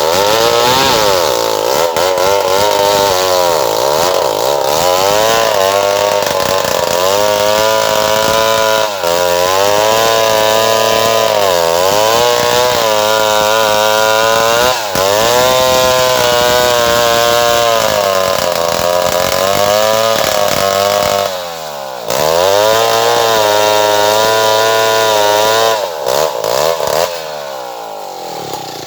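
Stihl 070 large two-stroke chainsaw cutting into a tree at full throttle, its engine note sagging under load and picking up again over and over. It drops off briefly about two-thirds of the way through, revs back up, then falls away toward idle near the end.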